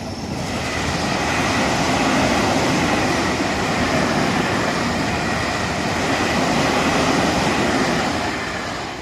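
Tobu Skytree Line electric train passing close by the level crossing: a loud rush of wheel-on-rail running noise that builds quickly at the start, holds steady, and dies away near the end.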